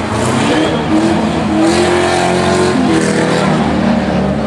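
Big banger race cars running on the track, several engines at once, one revving up with a rising pitch in the first two seconds, holding, then easing off about three seconds in.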